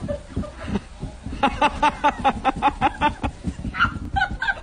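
A person's high-pitched cackling laughter: a rapid run of short 'ha' notes, about six a second, lasting roughly two seconds from about a second and a half in, with a few more near the end.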